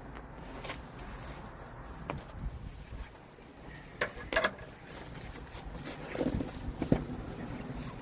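Scattered metal clicks and knocks from working under a car, such as a jack and hand tools being handled and positioned. There are about half a dozen separate knocks, the loudest pair about four seconds in.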